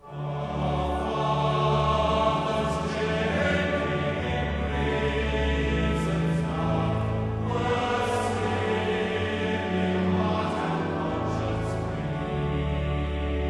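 Choral music: a choir singing slow, held chords over sustained low notes, starting abruptly.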